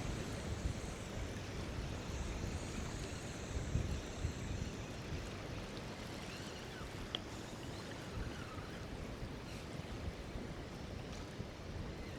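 Strong wind buffeting the microphone in a steady low rumble, with water washing and lapping around the kayak.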